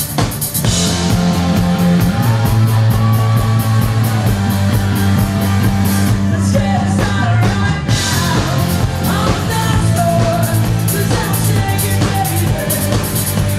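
Rock music, with a punk-rock feel, played by a band on guitars, bass and a drum kit with a steady beat, with singing over it.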